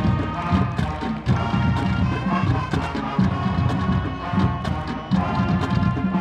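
Marching band playing, the snare drumline beating a fast pattern under held horn notes, with crash cymbals struck over it.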